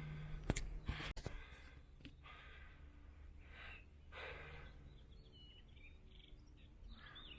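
A person breathing out a few times, with a couple of sharp clicks in the first second or so and faint bird chirps in the background.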